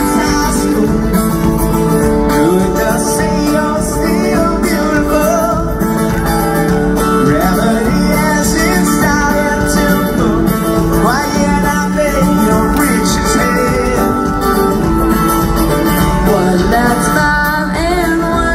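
Live band playing a song through a concert PA, acoustic guitar and drums under a man and a teenage girl singing a duet, heard from the audience.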